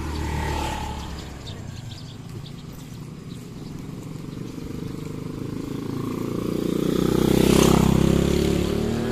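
Small motor scooters riding past on a narrow road: one passes close just after the start, then another engine grows louder, loudest about eight seconds in, and eases off near the end.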